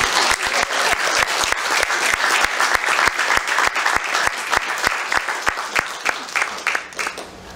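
Audience applauding, thinning to scattered single claps near the end.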